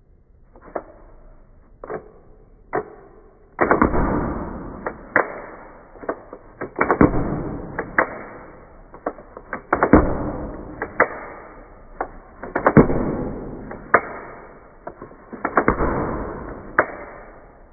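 UGEARS Wolf-01 wooden rubber band pistol being fired: a string of sharp wooden clicks and snaps from its trigger and release mechanism as the rubber bands are let go one after another. The first few clicks are faint; from about four seconds in they come louder, irregularly spaced, some followed by a short rattle.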